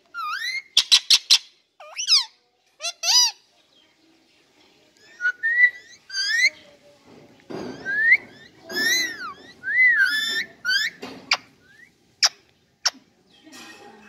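Indian ringneck parakeet whistling and chirping: a string of short calls that bend up and down in pitch, with a few very short sharp chirps near the end.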